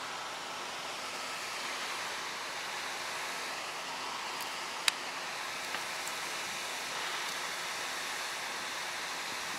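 Steady rush of flowing water, with one sharp click about five seconds in.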